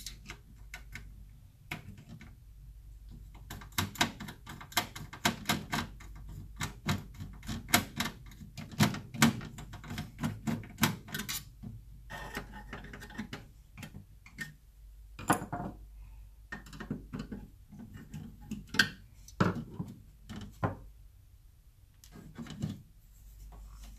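Irregular clicks, taps and light knocks of hands working inside a sheet-metal rack-mount power-supply chassis, handling and loosening the perforated-cage 12 V switching power-supply module; the clicks come thickest in the first half.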